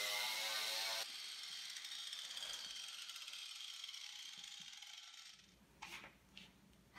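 Angle grinder fitted with a twisted wire wheel running at full speed, switched off about a second in and winding down with a fading whir over the next few seconds. A couple of light handling clicks near the end.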